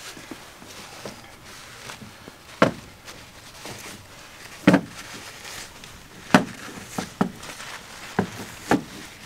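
Engine main bearing caps knocking against a metal workbench while their bearing shells are wiped with a shop rag: about seven sharp, irregularly spaced knocks, with faint rubbing between.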